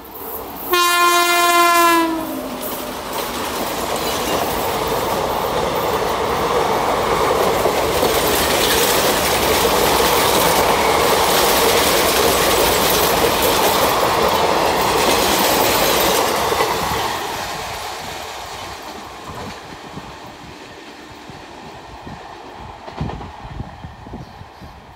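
Electric locomotive horn blast lasting about a second and a half, then an express train rushing past at speed with wheel clatter. The noise builds for several seconds, holds, and fades away.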